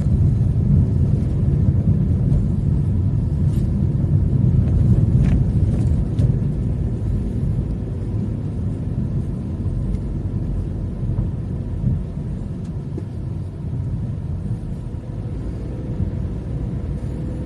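A steady low rumble, easing slightly over its length, with a few faint clicks.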